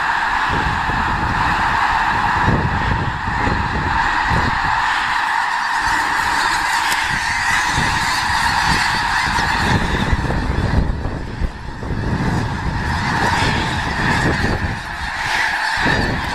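A huge flock of snow geese calling all at once, a dense, continuous chorus of honking that thins briefly a little over halfway through. Wind buffets the microphone with low rumbling gusts underneath.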